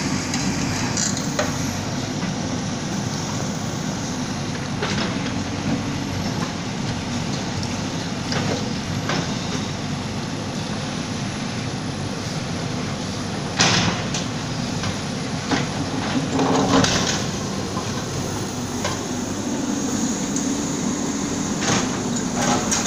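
Bulldozer engine running steadily under load, with sharp knocks and clanks of demolition work; the loudest knock comes about 14 seconds in, and a cluster follows around 17 seconds.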